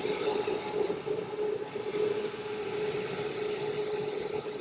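Steady mechanical hum with a constant mid-pitched tone under a light hiss.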